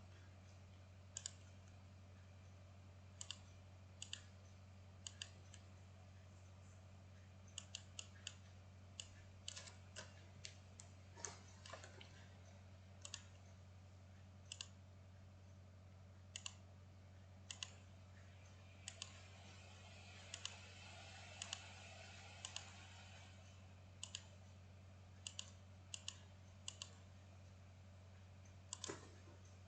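Computer mouse clicks and keyboard keystrokes, short sharp clicks at irregular intervals of a second or so, over a faint steady low hum.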